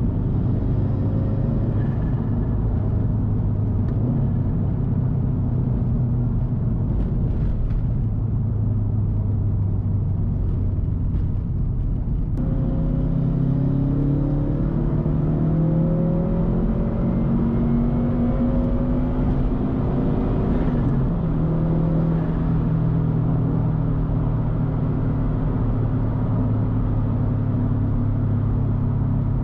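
2013 Subaru WRX STI's turbocharged flat-four engine through a titanium Tomei Expreme Ti turbo-back exhaust, droning steadily under way. About halfway through, the engine note climbs in pitch as the car accelerates, then settles back into a steady drone near the end.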